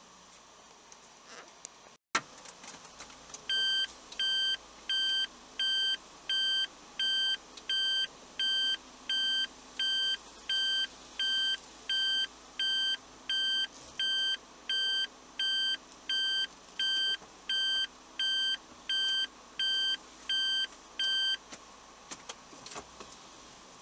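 Vehicle reversing warning beeper sounding a steady run of identical short electronic beeps, about four every three seconds, while the vehicle backs up; it starts a few seconds in and stops a couple of seconds before the end.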